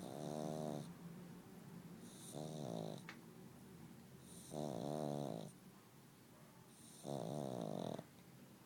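Pug snoring in its sleep: four snores, each under a second long and spaced about two and a half seconds apart, with quieter breathing between them.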